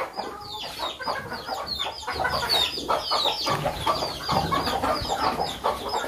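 Chickens clucking, with many short, high, falling chirps.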